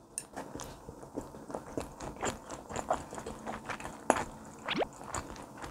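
A person chewing a mouthful of tuna sashimi on sushi rice, with many irregular wet clicks and smacks of the mouth, picked up by a lapel microphone close to the mouth.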